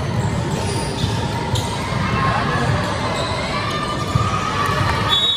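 Basketball game in a gym: a ball bouncing on the hard court among faint squeaks and background crowd voices.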